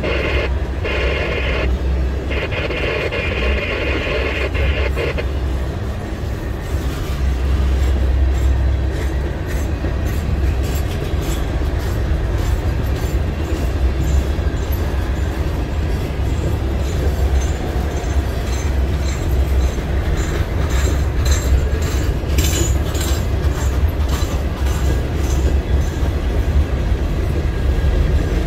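A CSX freight train of empty stone hoppers and gondolas rolling past: a steady low rumble of wheels on rail, with a higher ringing tone over the first five seconds. From about eight seconds in there is fast clicking from the wheels, with short high squeals in the second half.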